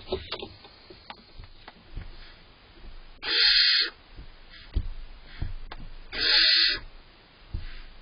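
Barn owl owlets giving two hissing food-begging calls, each about half a second long and about three seconds apart. Between the calls come faint scratches and knocks as the owlets shuffle on the wood shavings.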